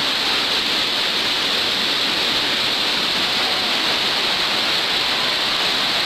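Flash-flood water rushing and churning down a street in a downpour: a loud, steady, even rush of water.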